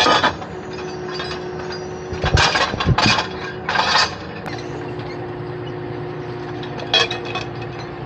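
Engine of a heavy logging machine idling steadily, with several short loud knocks and clatters over it, a few seconds apart.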